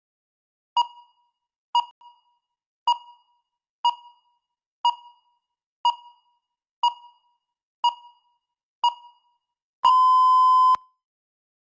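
Countdown timer beeping: nine short beeps about a second apart, then one long beep lasting about a second as the preparation time runs out to zero.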